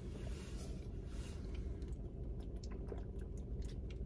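Quiet close-up mouth sounds: chewing, then drinking water from a plastic bottle. A run of small clicks and crackles comes in the second half.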